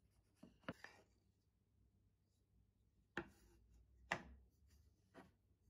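Faint, light knocks of small wooden round trays being set down and picked up on a tabletop and against each other: three quick clacks in the first second, then single knocks about three, four and five seconds in, the one just after four seconds the loudest.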